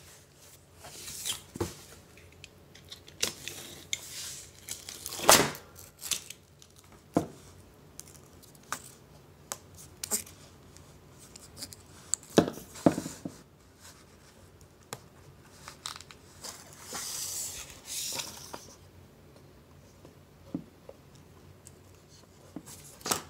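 Heavy-duty scissors cutting through a vinyl peel-and-stick floor tile in separate irregular snips, with the tile handled between cuts. About two-thirds of the way in there is a longer, steadier stretch of cutting or rustling lasting about two seconds.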